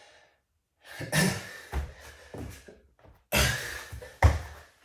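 Hard, sighing exhales of a man mid-way through a set of burpees, with thuds as his hands and feet land on the exercise mat; the sharpest thud comes just past four seconds, as he drops into the plank.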